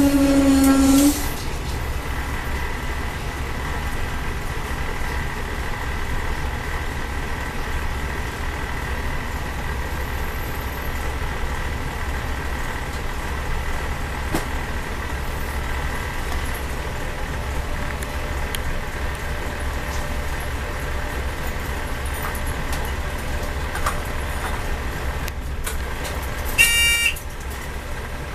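X305 diesel railcar running along the line, heard from inside the driver's cab: a steady low engine and running rumble. A loud steady tone cuts off about a second in, and a brief high beep sounds near the end.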